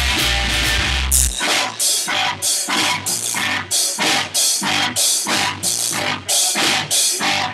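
Rock band with drum kit and electric guitars, recorded raw and loud. The full band with heavy bass plays at first; about a second in the bass drops out and the band plays short, clipped hits together, about three a second.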